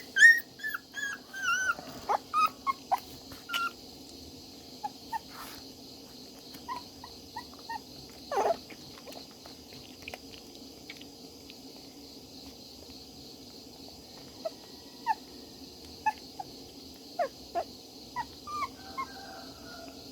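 Newborn puppies whimpering and squeaking: a quick run of high, falling squeals in the first couple of seconds, then scattered short squeaks.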